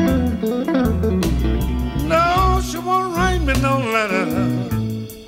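Electric blues: electric guitar lines over a bass line. The music drops out briefly near the end.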